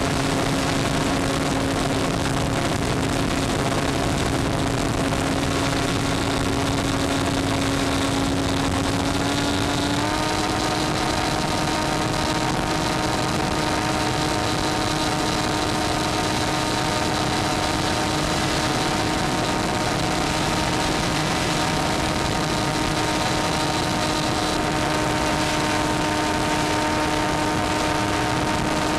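Electric motor and propeller of an FPV model plane running steadily under power, a hum with overtones over a rush of wind noise; its pitch steps up slightly about ten seconds in as the throttle is opened a little.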